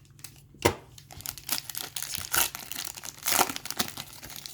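Plastic trading-card pack wrapper being torn open and crinkled by hand, a run of irregular crackles and rustles with a sharp one about a second in.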